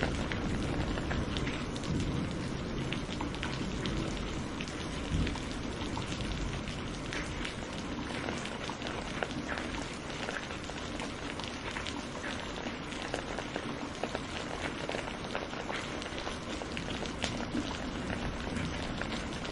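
Steady heavy rain falling, a dense hiss with many separate drops ticking, and the tail of a low thunder rumble dying away over the first few seconds.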